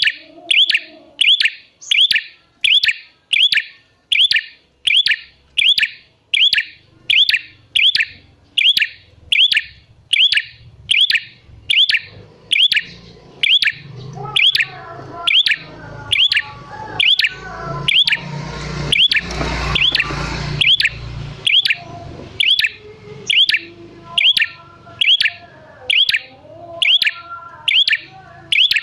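Prenjak merah (a prinia) chattering a sharp, evenly repeated chirp about one and a half times a second, the gacor call used as a lure for other prenjak. A rushing background noise swells in the middle and fades.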